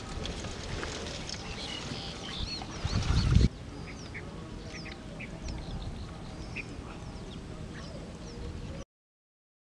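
Outdoor lake ambience with birds calling in short, scattered chirps. For the first three seconds a louder rustling noise with a low rumble underlies the calls, peaking at about three seconds before it drops away suddenly. The sound cuts out to silence near the end.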